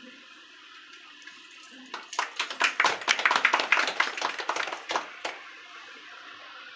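A small group clapping for about three seconds, starting about two seconds in and stopping fairly abruptly.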